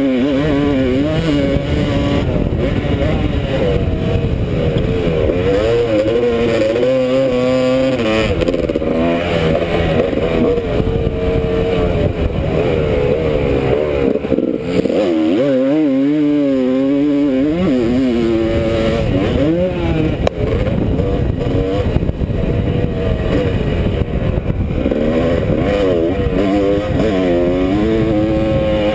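Motocross dirt bike engine revving up and down again and again as the rider accelerates, shifts and rolls off the throttle around the track, heard close up from the rider's helmet. The pitch drops lower for a couple of seconds about halfway through, then climbs again.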